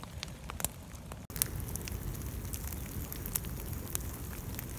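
Wood campfire crackling, with sharp pops scattered irregularly over a low steady rumble and a momentary break about a second in.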